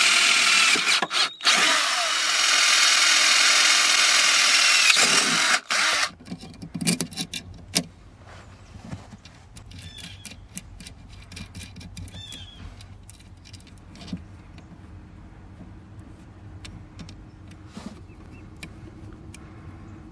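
Milwaukee M12 cordless drill running at speed as it bores holes through the metal parking-brake pedal arm, with a brief stop about a second in, cutting off at about six seconds. After that come scattered light clicks and handling noises as the aluminum pedal pad is fitted and fastened by hand.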